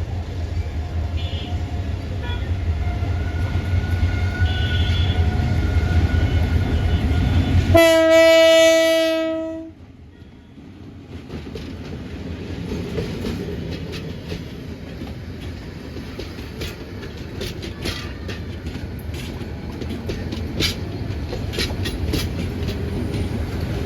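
A passing express train. Its diesel locomotive rumbles louder as it approaches, then sounds its air horn once, a loud, steady note lasting about two seconds, around eight seconds in. After that the coaches run by with rattling and repeated clacks of the wheels over the rail joints.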